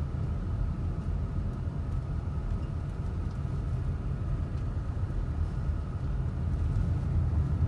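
Car driving along a paved street, heard from inside the cabin: a steady low rumble of engine and tyre noise.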